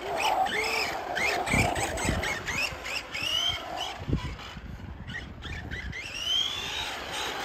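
ARRMA Senton 3S short-course RC truck's brushless motor whining, its pitch rising and falling in quick swoops as the throttle is blipped, then climbing in one long rising whine near the end as the truck speeds away.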